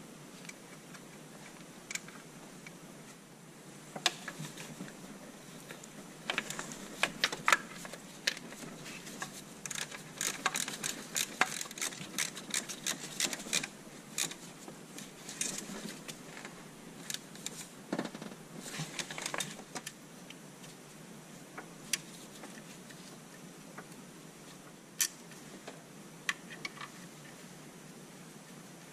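Hand tools on metal car parts: irregular sharp clicks and clinks, busiest in the middle stretch and sparse near the start and end.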